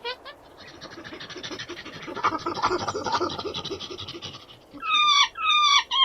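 Monkey calls: a rapid, panting chatter of quick pulses that builds and then fades over about four seconds, followed near the end by two loud screeches that drop in pitch.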